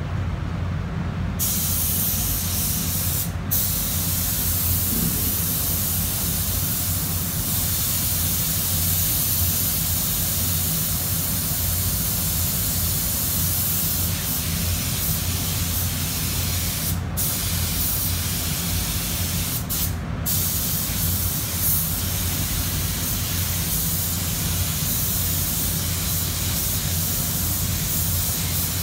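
Paint spray gun hissing steadily as it lays a coat of base colour onto a car body, cutting out briefly a few times. A steady low hum runs underneath.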